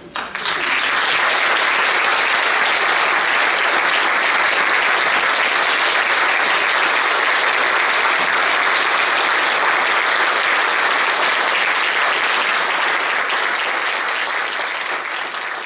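Audience applauding, breaking out as the last note of a piece ends. The applause holds steady, then begins to die away near the end.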